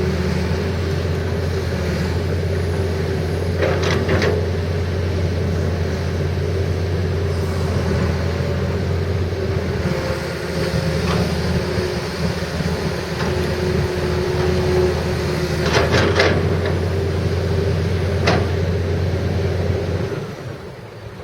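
Hitachi EX300LC-3 hydraulic excavator's diesel engine running steadily while the machine is operated, with several sharp knocks: two about four seconds in and a cluster near the end. The engine sound drops away shortly before the end.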